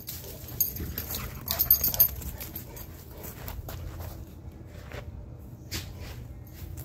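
A Cane Corso at play on dirt: a run of short scuffs and rustles, busiest in the first two seconds, then scattered ones.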